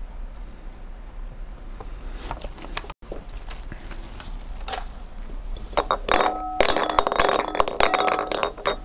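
Small draw balls rattling and clinking against the inside of a glass bowl as a hand stirs through them, with the glass ringing. The rattling starts about six seconds in and goes on almost to the end, after a few soft taps earlier.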